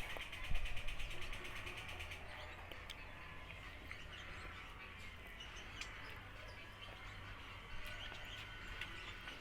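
A steady, high, rhythmic chirping in the background that fades about two seconds in. Over it come scattered small clicks of eating and a couple of low thumps near the start.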